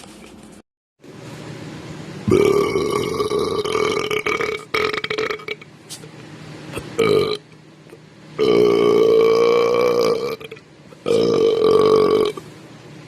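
A person belching one long, deliberate burp after another: a long one a couple of seconds in, two short ones around five and seven seconds, and two more long ones near nine and eleven seconds, each holding a steady pitch.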